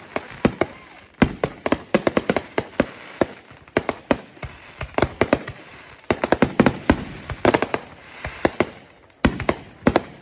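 Fireworks going off: rapid clusters of sharp bangs and crackles, one cluster after another with a short hiss between them.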